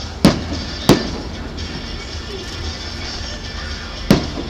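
Aerial firework shells bursting: two sharp booms close together near the start and a third near the end, each with a short echoing tail.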